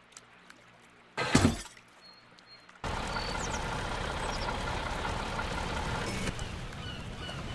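A short, loud whoosh about a second in. From about three seconds in, a steady mechanical running noise starts, with a few faint high chirps over it.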